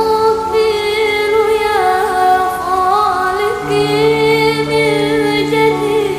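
Female voice singing a sholawat melody without clear words, in long held notes that bend and waver, over a steady low sustained accompaniment tone that steps lower about three and a half seconds in.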